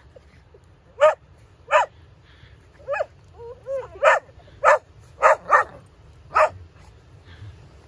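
A dog barking in play, about eight short, sharp single barks at irregular spacing, with a brief whine just before halfway.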